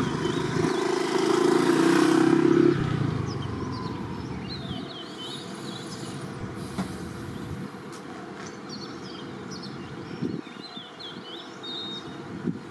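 A motor vehicle runs past and fades away over the first three seconds, then birds chirp on and off.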